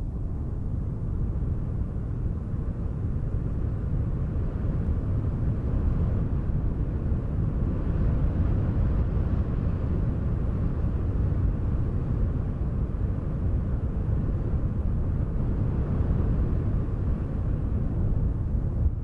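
Wind ambience, a steady low rumbling rush that swells a little through the middle and dips briefly near the end.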